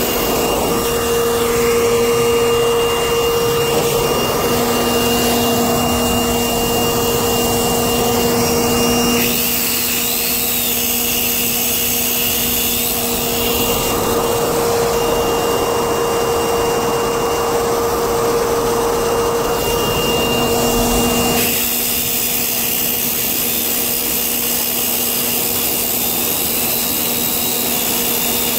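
Corded circular saw with a diamond blade cutting a groove through an asphalt driveway, its motor whining steadily under load. From about 9 to 21 seconds in, the sound changes as an electric leaf blower blows the dust out of the cut.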